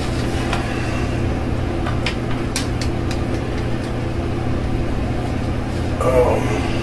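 Steady low mechanical hum with a few light clicks, and a short murmur from a man's voice near the end.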